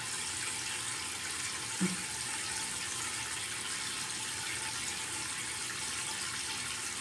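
Water running from a tap that has been left on: a steady, even hiss.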